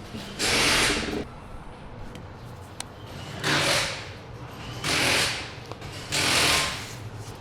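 Power tool run in four short bursts of just under a second each, snugging the 14 mm flange bolts of the steering shaft coupling.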